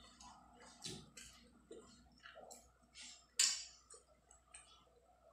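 Close-up eating sounds from a person eating rice and curry by hand: chewing with a series of short wet mouth smacks and clicks, the loudest about three and a half seconds in, along with fingers working the rice on the plate.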